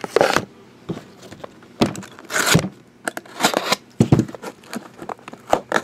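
Trading card box packaging being handled and opened: an irregular run of crinkling, rustling and small knocks.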